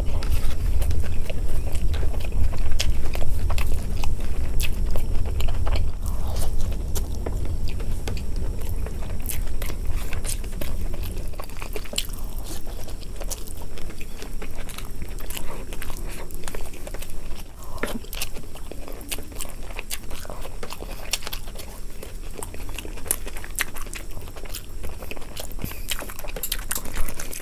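A person chewing and biting food close to the microphone, with many small wet clicks and smacks throughout.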